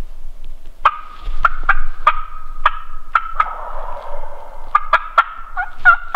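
Wild turkeys gobbling, a loud series of gobbles in quick succession.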